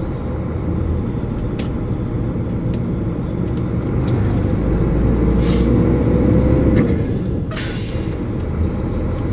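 Truck's diesel engine running, heard from inside the cab as the truck pulls away slowly, its pitch rising as it accelerates about five seconds in and easing off near the end. A few light clicks and a short burst of noise about seven and a half seconds in.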